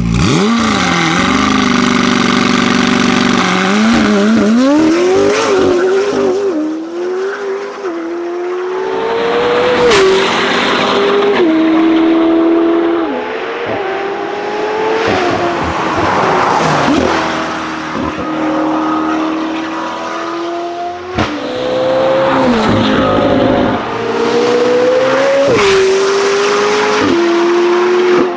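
McLaren 765LT's twin-turbo V8 through a Novitec stainless-steel sport exhaust, revving and accelerating hard, its pitch climbing and then dropping sharply at each upshift. Several sharp cracks come from the exhaust.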